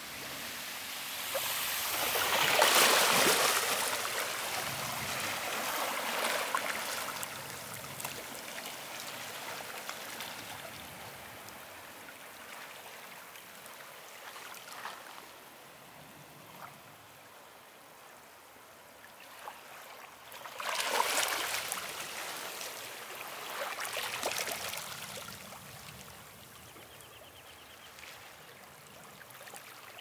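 Ocean surf: waves breaking on a beach and washing up the sand, with the sound of water hissing between them. Two large waves break, one a few seconds in and one about two-thirds of the way through, and a smaller wash follows soon after the second.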